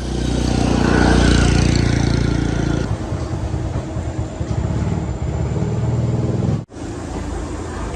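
A small engine running, strongest in the first few seconds and then a rapid rough pulsing, cut off for an instant near the end.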